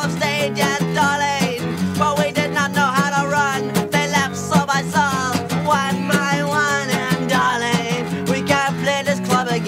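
Punk rock song playing: guitar and drums keep a steady beat, with a wavering, bending melody line over them.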